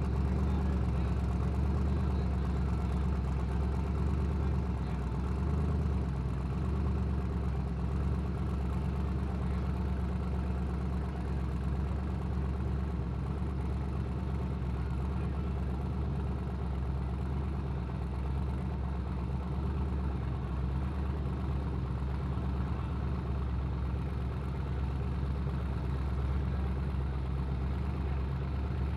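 First-generation Chevy S-10 drag truck's engine idling steadily at a low, even pitch, with no revving.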